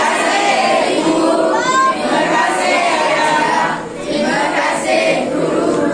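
Many children's voices singing together in unison as a group.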